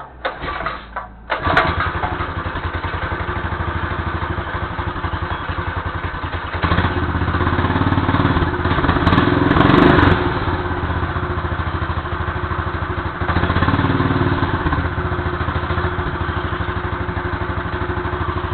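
Motorized bicycle's small engine being pull-started: a few short tugs, then it catches about a second in and runs steadily. It is revved up twice, the first time from about 7 to 10 seconds in and again briefly near 14 seconds.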